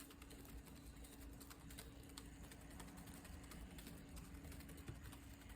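Near silence with faint, scattered small clicks of a plastic battery-powered cat toy being handled, under a faint steady hum.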